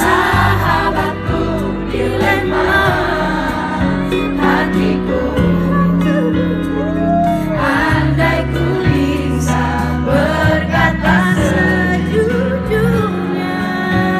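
Live pop song performance: a female singer's voice over band accompaniment, with steady bass notes under the melody.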